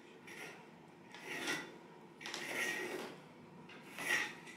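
Four short scraping strokes across a painted wooden panel as it is marked out with a pencil and straightedge, about a second apart.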